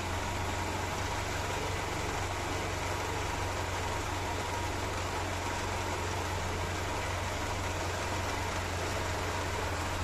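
Mercedes-Benz M102 2.0-litre eight-valve four-cylinder engine with a carburettor and a single ignition coil, idling steadily once it has warmed up.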